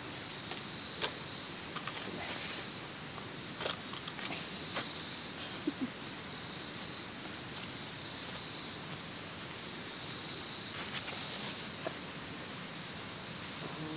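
Steady, high-pitched insect chorus running without a break, with a few faint clicks and rustles of someone shifting about in a nylon tent.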